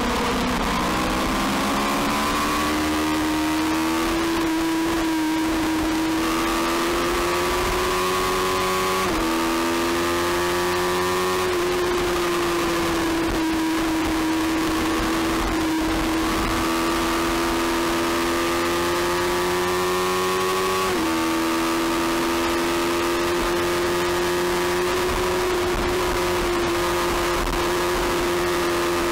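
Small-displacement supersport race motorcycle engine held at high revs under hard acceleration. Its pitch creeps upward, then drops abruptly at upshifts about nine and twenty-one seconds in, over a steady rush of noise.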